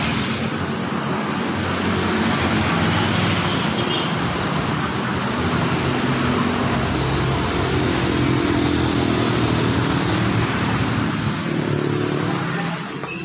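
Street traffic: vehicle engines running and passing over a steady wash of road noise, easing off a little near the end.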